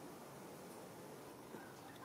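Near silence: steady room hiss, with a faint short high squeak near the end.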